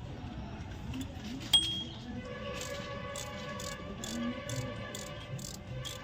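A single sharp metallic clink about a second and a half in, then background music with steady held notes and an even ticking beat from about two seconds on.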